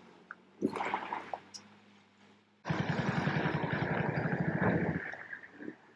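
Heavy truck's diesel engine running hard with a fast, even low pulsing, cutting in suddenly a little before halfway and cutting off abruptly about two seconds later. A short rush of noise comes about a second in.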